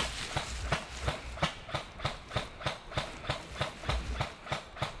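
Footsteps of a player moving on foot, a regular thud-and-rustle about three steps a second.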